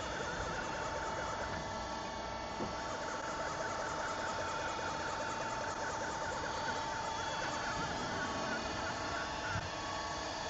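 CNC turn-mill machining center running steadily during tool setting: a constant motor hum with a steady whine that shifts pitch slightly near the end, and a couple of faint clicks.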